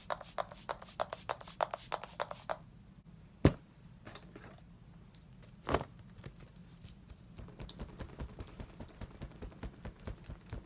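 A quick run of short spritzes from a MAC Fix+ setting-spray pump bottle. Then a loud knock, a sharp snap, and a faint rapid flutter of a folding hand fan being waved fast.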